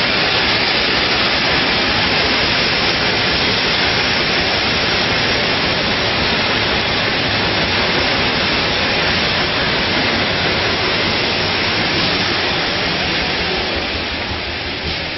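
Steady loud hiss and running noise of a bottling-line combi block in production. It eases off a little near the end.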